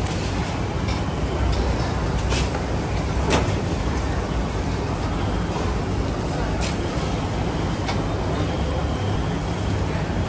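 Busy ambient background: a steady low rumble with a few sharp clicks and knocks, the loudest about a third of the way in.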